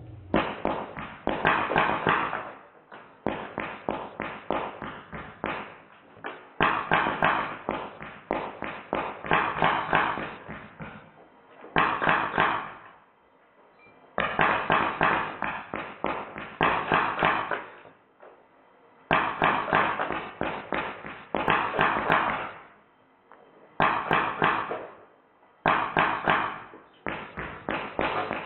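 Drozd Blackbird BB gun firing full-auto on high-pressure air, in eight bursts of rapid shots about one to four seconds long, with short pauses between them. BBs rattle into a popsicle-stick and toy-figure target, knocking it apart.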